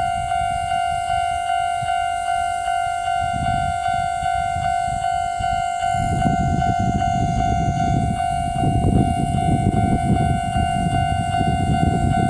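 Japanese level-crossing warning bell ringing steadily at about two strikes a second, with the low rumble of a passing train rising from about six seconds in and louder from about eight and a half seconds.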